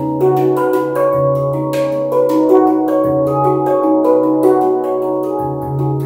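Meditation music: a steady low drone under sustained, overlapping tones that move to new notes every half second to a second.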